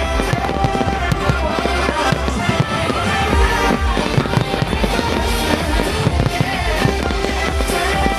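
Fireworks going off in many quick bangs and pops over loud music.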